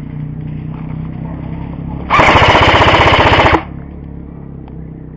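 Airsoft electric rifle firing one full-auto burst of about a second and a half, rapid evenly spaced shots, very loud and close.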